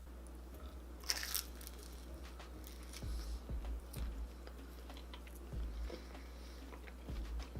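A close-miked bite into a slice of cheesy pizza about a second in, followed by soft, irregular chewing.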